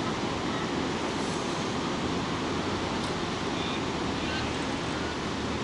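Steady rushing noise of water pouring over a low dam's spillway.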